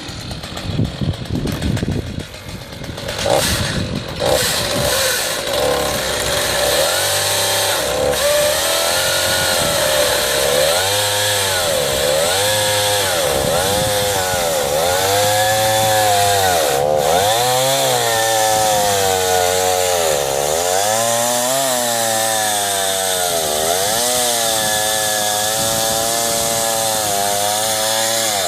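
Chainsaw running on an Alaskan chainsaw mill, ripping lengthwise through a log. The saw comes up to speed about three seconds in, then runs on under cutting load, its pitch rising and falling every couple of seconds.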